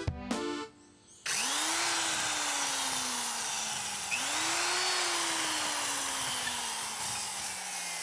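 Power drill boring through a wooden board. The motor whine rises as it speeds up, then sags slowly as the bit bites into the wood; this happens twice, starting about a second in.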